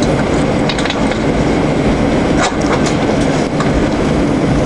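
Cabin noise of an Airbus A321 taxiing: a steady rumble of engines and rolling wheels, with scattered clicks and rattles through it.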